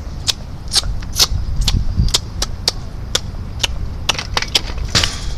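Irregular sharp clicks, about two or three a second, over a steady low rumble.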